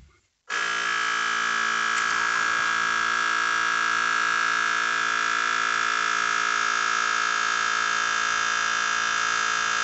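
Uninet DTF 1000 printer switched back on: about half a second in, a steady electric hum with a strong high tone starts and holds evenly without change.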